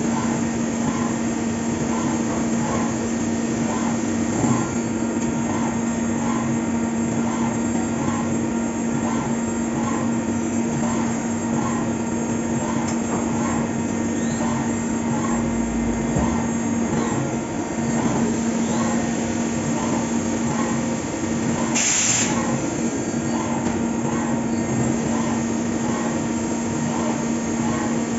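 Fagima Jazz M five-axis CNC machining centre running a cut: a steady hum over mechanical noise, with a faint pulse about once a second. A short sharp hiss breaks in about two-thirds of the way through.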